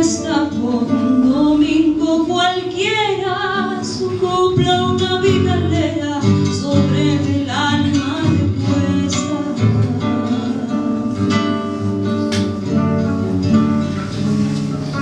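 A woman singing live with acoustic guitar accompaniment; the voice is most prominent in the first half, and the guitar playing comes to the fore later.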